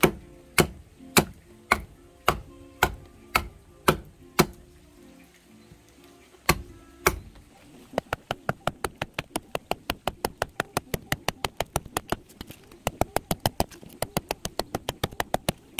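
A small edged hand tool chopping into a piece of dry toona wood: sharp strikes about two a second, a short pause with two more strikes, then quicker, lighter strikes about five a second from about halfway. Background music plays beneath.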